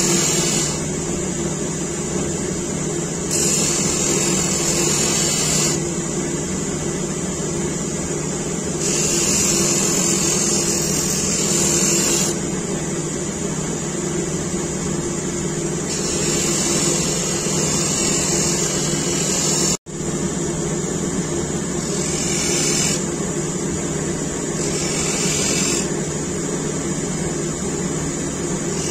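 Bench grinder motor running steadily with a constant hum, while a steel hook knife is ground against its emery wheel in repeated passes: a bright grinding hiss comes and goes, each pass lasting one to a few seconds.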